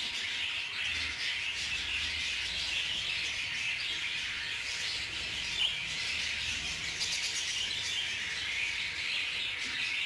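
A flock of budgerigars chattering and chirping continuously.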